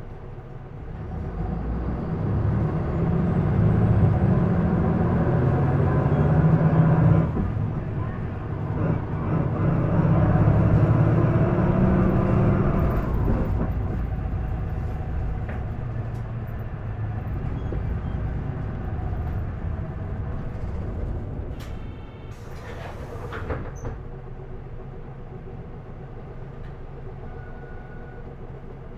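Isuzu Erga city bus heard from inside, its diesel engine pulling hard and climbing in revs under acceleration. About seven seconds in the revs drop sharply, as at a gear change, then climb again and ease off toward a steady low running. A short hiss comes about two thirds of the way through.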